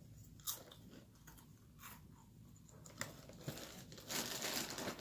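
Packaging of a cracker box crinkling as a hand rummages inside it: faint scattered ticks at first, then steadier, louder rustling from about four seconds in.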